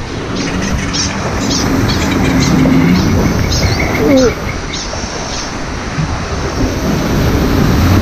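Water rushing and churning around a circular river-rapids raft as it drifts down the ride channel, a steady wash, with short high chirps in the first few seconds.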